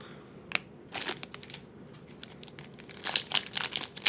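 Trading cards being handled and flipped through, with crinkling from the pack wrapper and a few sharp flicks early on. The handling gets busier about three seconds in.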